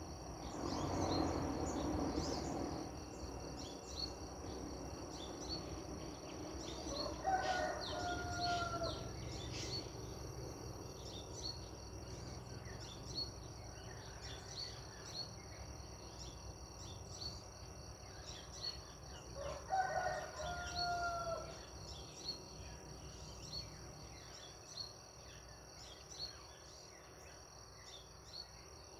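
A rooster crowing twice, about twelve seconds apart, each crow about two seconds long and dropping at the end. Under it a steady high insect drone and scattered small-bird chirps continue, with a rush of noise in the first couple of seconds.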